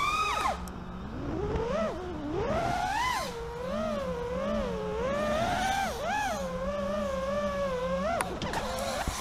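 FPV quadcopter's brushless motors whining, the pitch rising and falling constantly with the throttle. The pitch drops steeply about half a second in, and there is a short click about eight seconds in.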